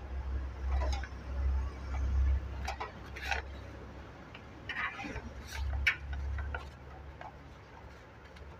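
Screwdriver turning out the power supply's mounting screws on the back of a steel desktop computer case: irregular metallic clicks and scrapes as the tip works in the screw heads, over a steady low hum.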